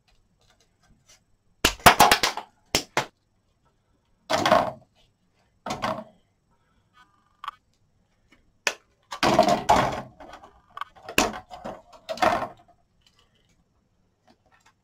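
Hard plastic model-kit sprue frames clattering and knocking as they are handled and laid on a table, with sharp snips of scissors cutting parts off the sprues. The sounds come in short clusters of clicks and knocks with pauses between them.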